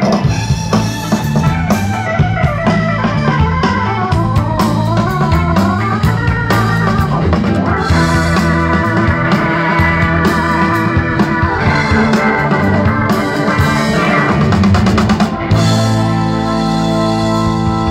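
Live rock band playing an instrumental passage with drum kit, bass and electric guitar. For the first several seconds a lead line glides up and down in pitch; about sixteen seconds in, the band settles into long held chords.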